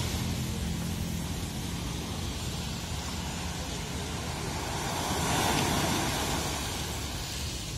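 Wind noise on the microphone over the sound of the sea and waves, with a low engine hum that fades out in the first few seconds and a louder gust or wash about five seconds in.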